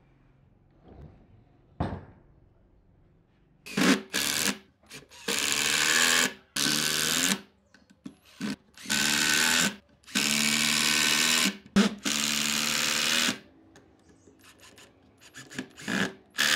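Makita cordless impact driver driving long wood screws into pine boards, in about six runs of one to one and a half seconds each, with shorter pulses near the end. A single knock about two seconds in.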